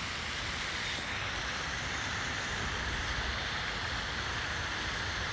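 Steady, even rushing and splashing of a fountain's falling water.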